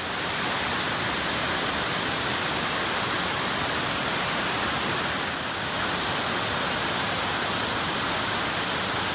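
Steady rushing of a large waterfall, an even, unbroken roar of falling water.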